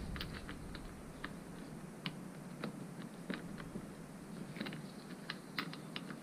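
Light, sharp metal clicks and taps of small parts being handled against the clutch hub of a Derbi moped engine, scattered irregularly with small clusters near the start and toward the end.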